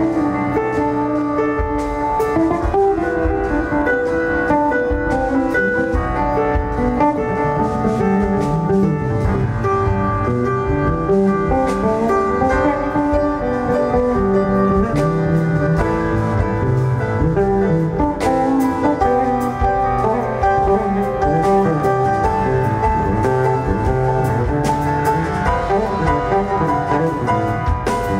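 Live band playing jazz. An electric bass plays melodic lines over drums and cymbal strokes.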